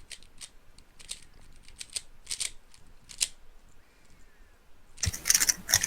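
Speedcube (3x3 Rubik's cube) being turned during a timed solve: plastic layers clicking as they turn, scattered quiet clicks at first, then a dense flurry of louder, fast clicks about five seconds in.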